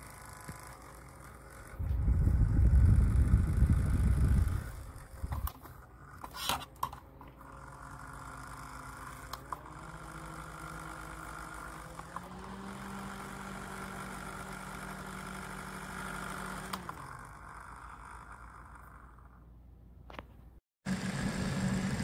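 SmartDevil small USB desk fan running with a steady motor hum. The hum steps up in pitch twice as the fan is switched up through its speeds, then slides down as it is switched off and winds down. The reviewer puts the fan's noise down to the balance of its loose blade. A loud low rumble of handling noise comes about two seconds in, and a few clicks follow.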